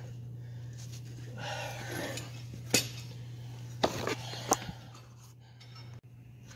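Hand tools and steel parts clinking: three sharp metallic clinks about a second apart near the middle, over a steady low hum.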